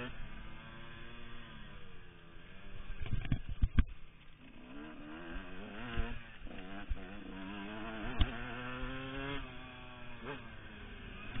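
Yamaha YZ125 two-stroke motocross bike running hard, its engine pitch climbing, dropping and climbing again several times in the middle as it is ridden through the gears. A few sharp knocks come a few seconds in and again near the end.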